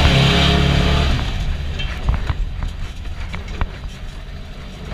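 VW Beetle baja bug's air-cooled 1641cc flat-four engine, heard from inside the cabin, running hard and then easing off about a second in. A few sharp knocks follow as the car goes on.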